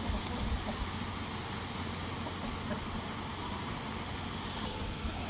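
A large aluminium cooking pot of masala boiling hard over a wood fire: a steady hiss with a low rumble underneath.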